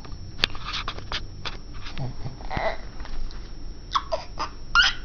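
A baby making small vocal sounds: a short coo about two and a half seconds in and a few brief high squeaks near the end, among scattered wet mouth clicks from sucking on his fist.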